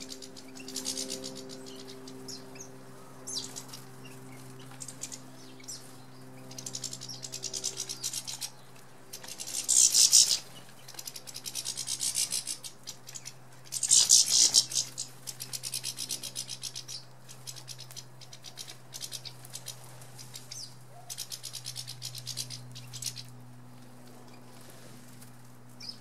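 European goldfinches at a feeder: short high twittering calls and the rush of wings as birds take off, loudest twice, about ten and fourteen seconds in. A low steady hum runs underneath.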